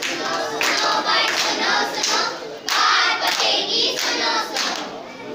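A group of children singing together in chorus, clapping their hands along in rhythm.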